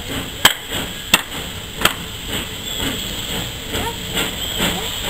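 Small saddle-tank steam locomotive rolling slowly over pointwork, giving a run of sharp knocks: three loud ones about two-thirds of a second apart, then fainter, quicker ones, with steam hissing around the wheels.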